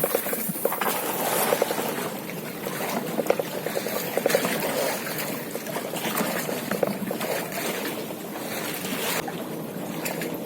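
Water splashing and trickling around a small boat on a river, with many small irregular splashes and drips.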